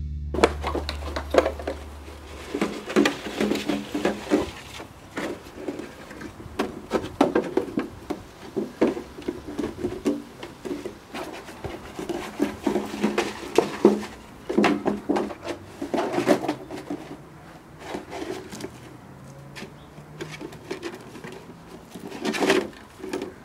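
Plastic milk bottle clattering and scuffing in irregular knocks as an Airedale puppy bites it and pushes it about.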